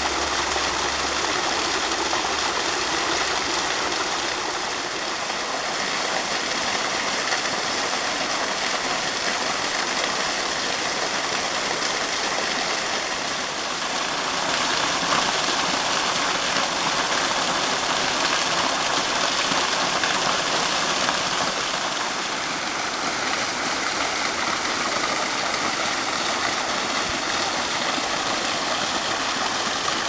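Small waterfall pouring down rock ledges and splashing onto stones in a shallow pool: a steady, even rush of falling water.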